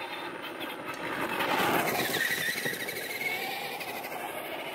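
Electric Traxxas RC truck driving past, its motor and gear whine growing louder to a peak about two seconds in, then fading as it moves away.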